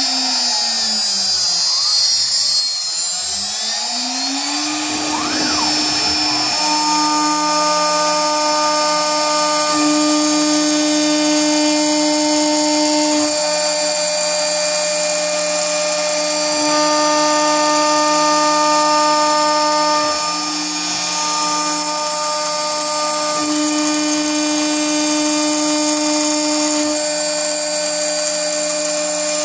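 CNC router spindle at 18,000 rpm driving a single-flute carbide end mill through aluminium plate: a steady high whine over the hiss of the cut. In the first few seconds the whine dips in pitch and climbs back up, then holds steady.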